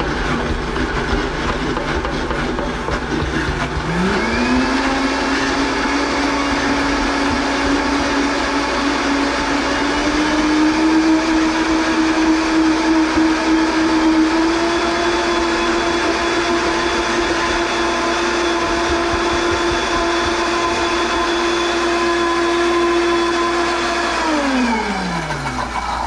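High-powered blender motor running as it purées cilantro, chili and lime juice into a chutney. Its pitch steps up about four seconds in and again around ten seconds as the speed is raised, then falls away near the end as the motor is switched off and spins down.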